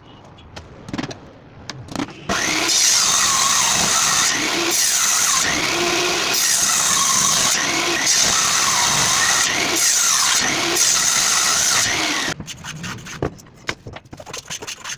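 Table saw with its blade through a bench top, cutting a wooden strip: a loud whine starts suddenly about two seconds in, its pitch dipping and recovering again and again as the blade bites into the wood, and stops abruptly about twelve seconds in. Then a run of short scraping strokes from a hand plane shaving a board.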